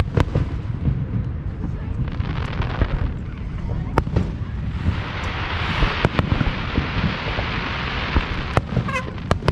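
Fireworks bursting with frequent sharp bangs and pops over a low rumble, with a stretch of dense crackling from about five to eight and a half seconds in.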